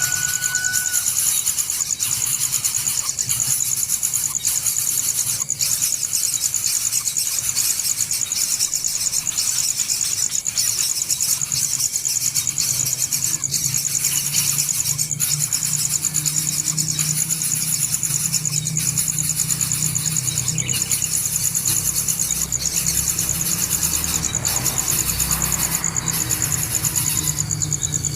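Insects, cicadas or crickets, buzzing in a steady high-pitched chorus with a fast, fine pulse.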